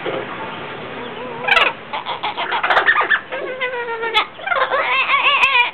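Two blue-fronted Amazon parrots calling back and forth in a string of warbling, squawky calls that glide up and down in pitch, in several bursts.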